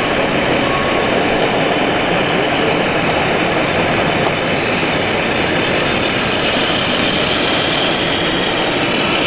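1/14-scale radio-controlled construction models running steadily: a continuous mechanical whir and rumble of their motors and gearing.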